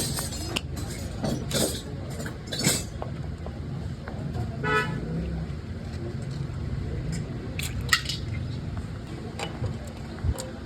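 Steady low rumble of vehicle engines and traffic, with a short horn toot about halfway through and a few brief hissing bursts.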